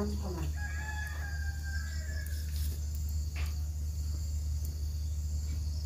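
A rooster crowing once, one long held call of about two seconds near the start, over a steady insect drone.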